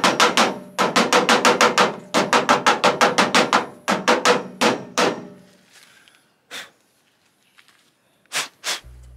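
Stihl 500i chainsaw air filter being knocked on its side against a ute's metal tailgate to shake the dust out of it. It goes in quick runs of sharp taps, about seven a second, with short breaks, stopping about five seconds in, followed by a few single knocks near the end.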